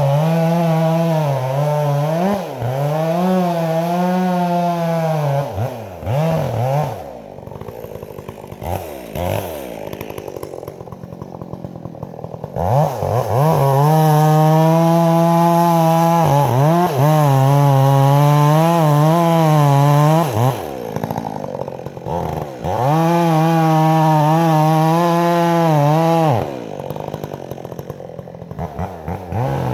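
Stihl MS 400 C two-stroke chainsaw with a BarkBox muffler, 20-inch bar and full-comp chain, run at full throttle through the wood of a big pine in long pulls of several seconds. Between pulls it drops back to a low, wavering idle, once for about six seconds.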